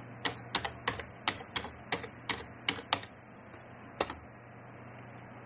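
Computer keyboard keys clicking as a terminal command is typed: about a dozen quick keystrokes over the first three seconds, then one more keystroke about a second later.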